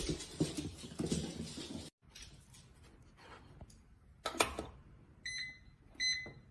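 A front-loading washing machine's door pushed shut with a single knock, then two short, high electronic beeps from its control panel buttons about three quarters of a second apart.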